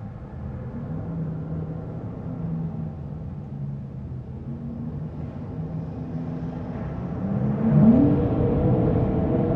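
Wind blowing through an attic: a low rumble with a few held hollow tones, growing louder about seven seconds in. A short wooden creak rises in pitch about eight seconds in.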